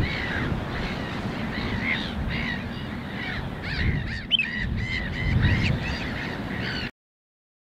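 Wetland birds calling over and over, about two calls a second and sometimes overlapping, over a low wind rumble on the microphone; all sound cuts off suddenly near the end.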